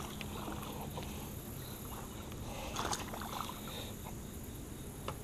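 Faint water splashing from a small largemouth bass being reeled in to the side of a kayak, with a short burst of splashing and clicks about three seconds in.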